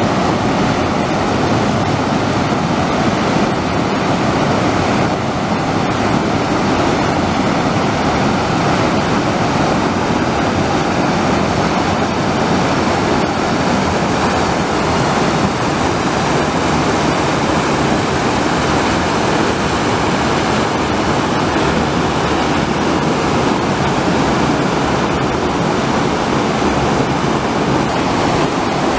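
Muddy flash-flood water in an arroyo, rushing and churning out of concrete box culverts: a loud, steady rush of turbulent water.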